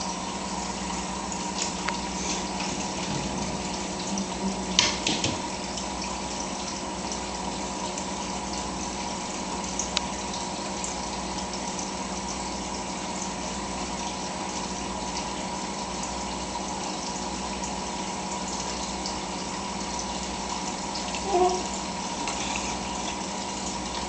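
Aquarium filter running: steady trickling and splashing of water into the fish tank, with a constant low hum. A few sharp knocks about five seconds in, and a short high blip near the end.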